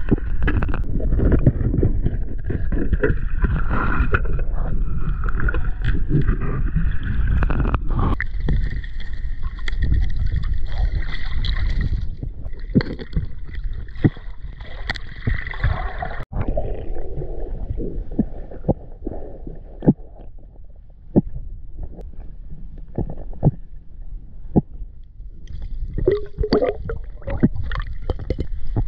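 Underwater sound from a submerged camera: a heavy low rumble of moving water, broken by frequent clicks and knocks as the diver's hands handle objects on the river bed. The rumble eases about halfway through.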